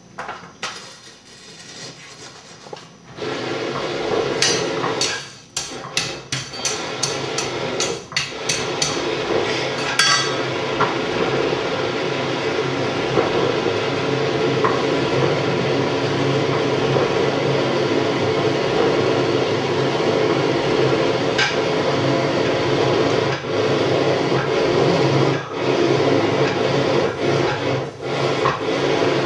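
Coal forge fire with its air blast switched on about three seconds in: a steady rush of blown air and flame that carries on throughout. For several seconds after it starts there is a run of sharp metallic knocks, about two a second, as a bar is worked in the fire.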